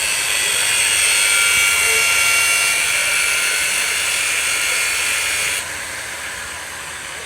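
Angle grinder cutting metal: a loud, steady hiss with a high whine, which drops abruptly to a quieter hiss about five and a half seconds in.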